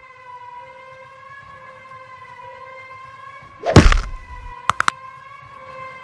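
Edited fight-scene sound effects: a steady, slightly wavering siren-like tone with a heavy hit about two-thirds of the way in, followed by three quick sharp clicks.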